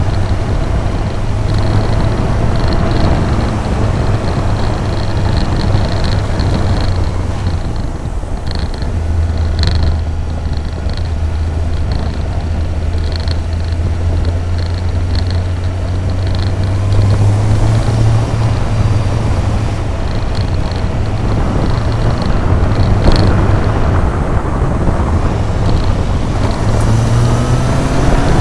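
Motorcycle engine running at steady low revs under wind and road noise, the revs climbing near the end.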